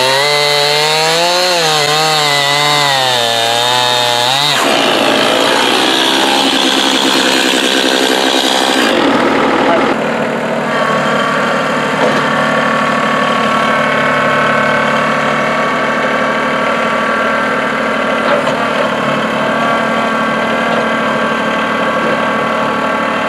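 A two-stroke Stihl chainsaw cutting through a large hard maple log, its engine pitch wavering as the chain bites, for the first few seconds. After that, a compact New Holland diesel tractor's engine running steadily while its front loader moves the cut log.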